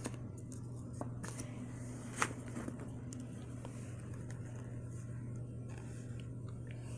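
Quiet room tone: a steady low hum with a few faint, short clicks and taps, one a little louder about two seconds in.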